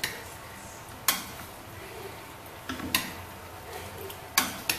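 Wooden spatula stirring a thick chicken and vegetable stew in a stainless steel pot, with about six sharp knocks as it strikes the pot.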